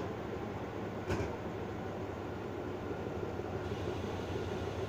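Diesel-electric locomotive idling at a standstill, a steady low engine hum, with a single short clank about a second in.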